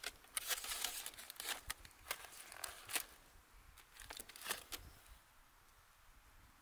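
Aluminium foil packet crinkling and crackling as it is pulled open by hand, in a dense run of sharp crackles that thin out and stop about five seconds in.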